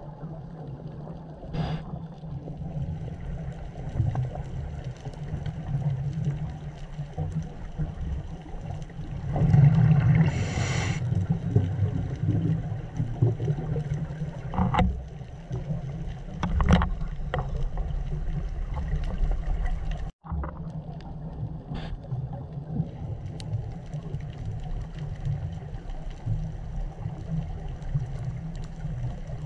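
Muffled underwater recording on a coral reef: a steady low rumble, with a loud hissing burst of a diver's exhaled bubbles about ten seconds in and a few sharp clicks. The sound briefly cuts out about two-thirds of the way through.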